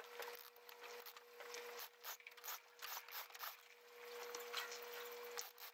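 Faint rustling and scraping of sailcloth and lines as a roller-furling jib is rolled in, made of many short scratchy clicks. A steady low hum runs underneath.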